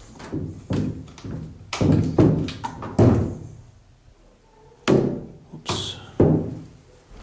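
Doors of an old wooden wardrobe being opened and shut: a series of hollow wooden thunks and knocks, about ten over several seconds.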